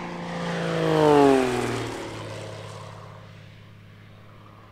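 An aircraft flying past: its engine note swells to a peak about a second in, then drops in pitch as it goes by and fades away into a low hum.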